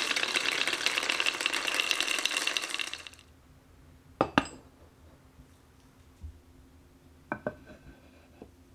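Glass marbles clattering rapidly down a wooden marble run for about three seconds. After that come a few separate clinks; a couple of them ring briefly, as a marble does when it strikes metallophone bars.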